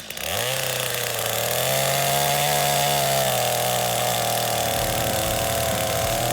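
Gas-powered two-stroke chainsaw revved up and held at high revs, with a brief dip in pitch at the start, as the freshly sharpened chain is put to the wood.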